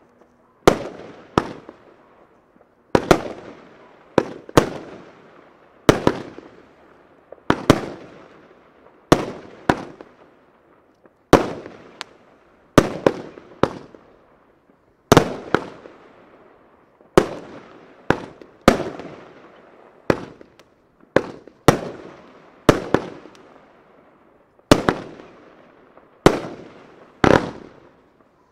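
Argento Feuerwerk 'Valentin' 30 mm fan cake firing its comet shots in a slow sequence. The sharp bangs come mostly in pairs about half a second apart, a pair every one and a half to two seconds, and each bang trails off.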